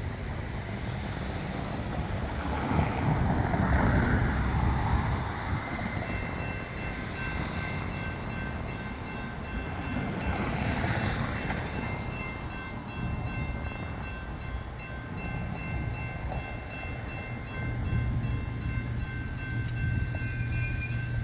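A car passes over the road. Then, about six seconds in, a railroad crossing warning bell starts up and keeps ringing, a steady, rapidly repeated high ding, as the crossing activates for an approaching light-rail train.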